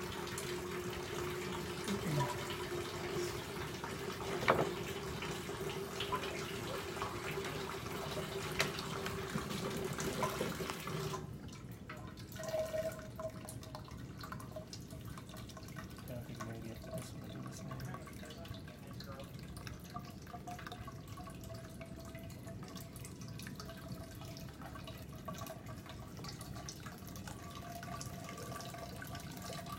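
Water running through a benchtop meandering-river flow model, fed by a hose at about 1.65 litres per minute, with a steady tone beneath. About eleven seconds in, the hiss drops off sharply and a higher steady tone continues.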